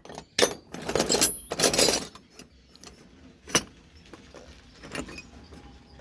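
Metal tools clattering and clinking as they are rummaged through, with several loud bursts in the first two seconds and a sharp single clink about three and a half seconds in.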